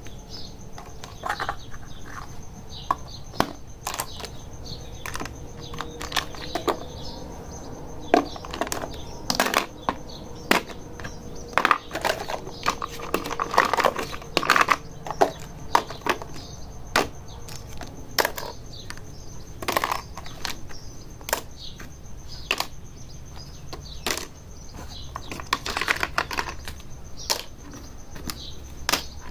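Small hard pieces of a miniature toy kitchen set being handled, giving many irregular clicks, taps and light knocks, with a denser cluster about halfway through.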